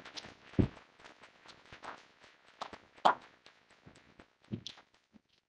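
A scatter of irregular clicks and knocks, with two louder thumps, about half a second in and about three seconds in.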